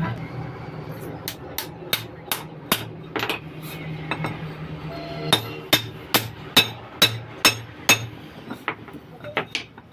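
Hammer striking the steel of a propeller shaft universal joint, sharp ringing blows at about two or three a second, as when driving out the cross's bearing caps. The blows pause for about two seconds mid-way, then resume, and turn to lighter, fainter taps near the end.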